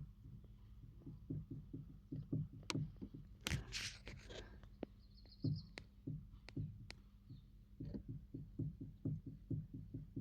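Steering rack worm gear on an Opel Zafira B knocking: a run of short, dull knocks, two to four a second in uneven groups, with a few sharper clicks. A brief rustling noise comes about four seconds in.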